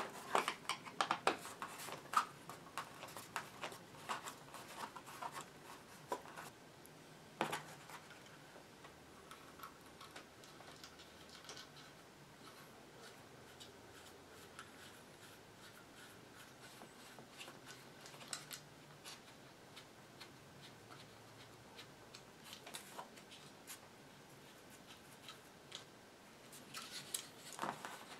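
Scattered faint clicks and scrapes of a screwdriver and small metal screws and hardware on a three-tube-socket strip from a 1920s battery radio being worked by hand on a cardboard-covered bench, busiest in the first few seconds with one sharper click about seven and a half seconds in, then only occasional ticks until a few more clicks near the end.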